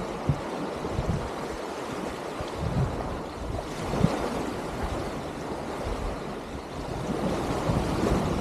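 Wind buffeting the microphone in irregular low gusts, over small waves washing up onto a sandy shore.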